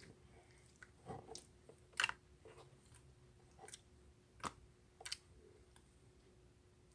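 Light, irregular clicks and taps, about seven of them, the loudest about two seconds in, over faint room tone with a steady low hum.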